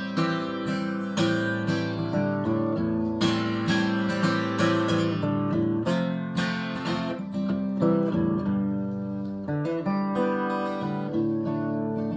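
Acoustic guitar strummed in chords with a steady rhythm, played right beside the microphone.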